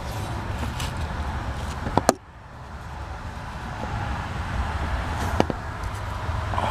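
Steady low rumble with a few sharp clicks, two close together about two seconds in and one more near the end. Right after the pair of clicks the rumble drops off suddenly, then slowly comes back.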